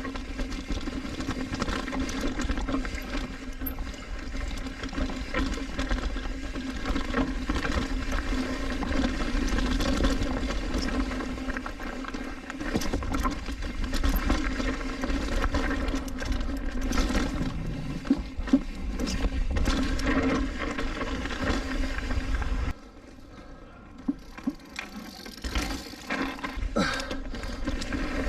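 Mountain bike ridden fast down a rocky trail: wind rumbling on the camera microphone, the bike rattling and clacking over rocks and roots, and a steady buzzing hum. About 23 seconds in, the rumble suddenly drops away for a few seconds, then the riding noise returns.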